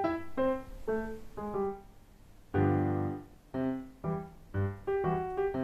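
Background music: a piano playing a light melody of short separate notes, with a louder full chord about two and a half seconds in.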